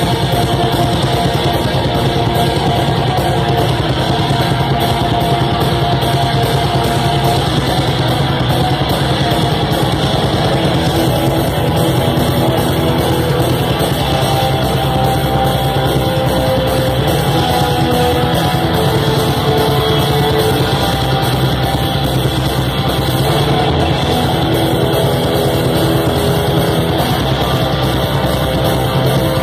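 Black metal band playing live at full volume: heavily distorted electric guitars over drums, a dense, unbroken wall of sound. Heard from within the crowd.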